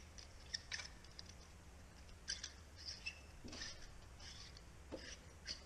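Faint, scattered small clicks and scraping of a screw-in socket adapter being threaded by hand into the bulb socket of an old recessed can light.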